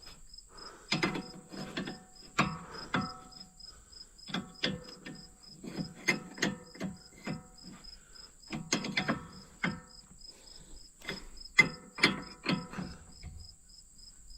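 Irregular metallic clinks and clanks, many with a short ring, as a wheel is put back on the truck and its lug nuts and tools are handled. Crickets chirp steadily in the background.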